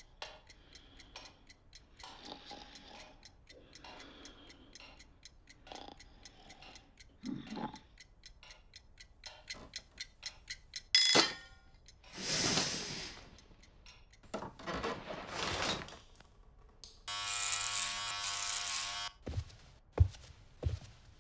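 Cartoon sound effects: a clock ticking steadily, then an alarm clock going off about eleven seconds in and cut off almost at once. Later a steady buzz lasts about two seconds, followed by a few thuds near the end.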